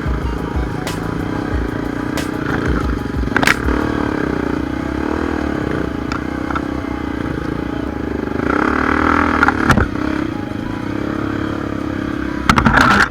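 Honda XR 250 Tornado's single-cylinder four-stroke engine running under load on a rough climb, its revs rising and falling with the throttle. Scattered sharp knocks and clatter come from the bike over rocks, and it gets louder for a moment near the end.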